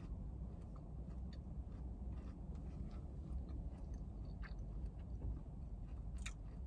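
A person chewing a bite of chocolate and pecan slice with mouth closed: soft, scattered crunchy clicks, one sharper click near the end, over a steady low rumble.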